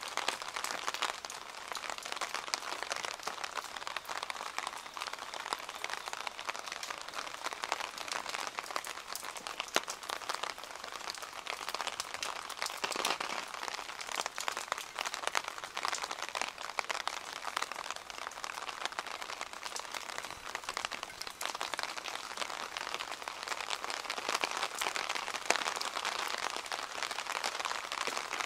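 Steady rain falling close by, a dense patter of many small drop ticks that keeps on without a break.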